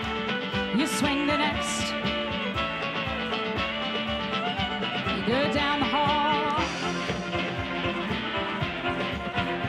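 A live contra dance band plays an upbeat instrumental dance tune over a steady, even beat.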